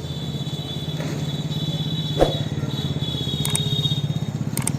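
A small engine running steadily with an even, rapid throb, with a single sharp click about two seconds in.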